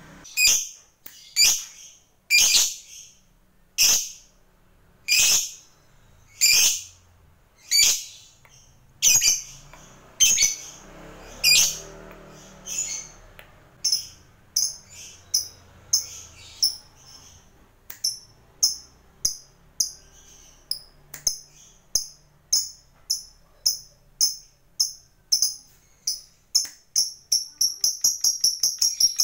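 Fischer's lovebird calling with sharp, high, piercing chirps, at first about one every second and a half, then coming faster and closer together. Near the end they run into a rapid chattering trill: the lovebird breaking into its 'ngekek', the long trilling song.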